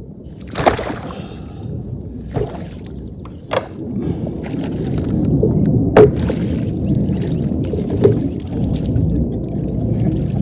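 Water splashing and sloshing as a hooked bass is fought in and netted, with several sharp knocks and splashes. The sloshing grows louder about halfway through.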